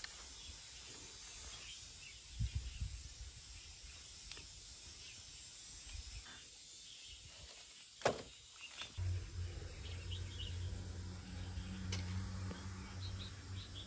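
Quiet outdoor background with soft handling and rustling as wild grapes are picked and sorted by hand, and a sharp click about eight seconds in. A low steady hum begins about nine seconds in.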